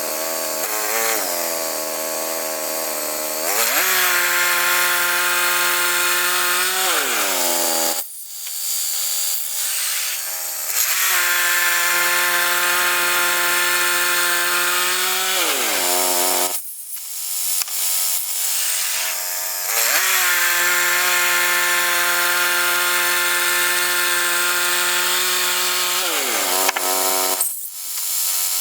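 Gas engine of a Woodland Mills HM122 portable band sawmill running at full throttle while the band blade cuts a log; its pitch drops and holds lower through three long stretches, the engine pulling down under the load of the cut, and rises again between them.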